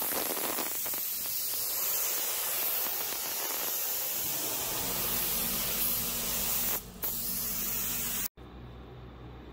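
Industrial-strength contact adhesive being sprayed onto plywood for plastic laminate, a steady loud hiss with a brief break about seven seconds in. It cuts off suddenly a little past eight seconds, and a low hum is left.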